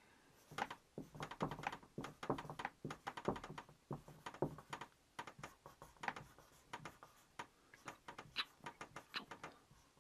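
Dry-erase marker writing on a whiteboard: a fast, uneven run of short strokes and taps as each letter is drawn.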